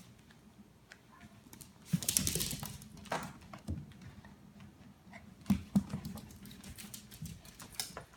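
A dog's claws clicking and scrabbling on a hard floor as it plays with a soccer ball, with a dense flurry about two seconds in and a couple of sharp knocks from the ball about five and a half seconds in.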